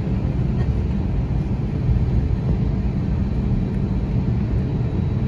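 Steady low rumble inside the cabin of an Airbus A321neo taxiing, its engines running at taxi power.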